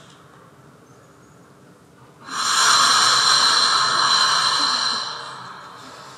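One long, loud, rasping breath-like sound. It comes in sharply about two seconds in after a quiet stretch, holds for about three seconds, then fades away.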